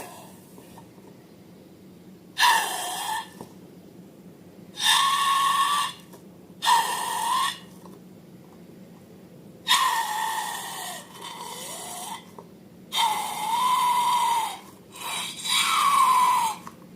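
Air let out of a stretched balloon neck, squealing in about seven separate bursts, each with a wavering pitch, some short and some lasting a couple of seconds.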